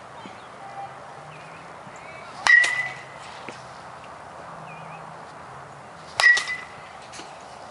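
Metal baseball bat striking a baseball twice, about four seconds apart, each hit a sharp crack with a short ringing ping.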